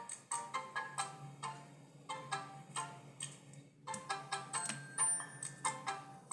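Mobile phone ringtone playing a melody of short notes that die away quickly, about three or four a second, with a brief break a little past the middle.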